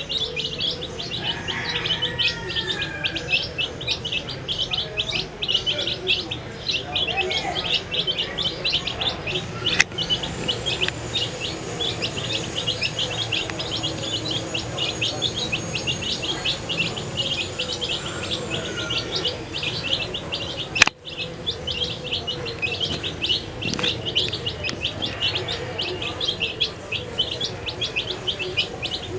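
A brood of baby chickens peeping constantly, many short high chirps overlapping without pause. A faint high steady tone sounds for several seconds in the middle, and there is one sharp click about two-thirds of the way through.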